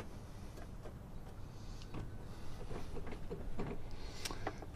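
Scattered faint clicks and light knocks of handling inside a vehicle cab. The engine is not running.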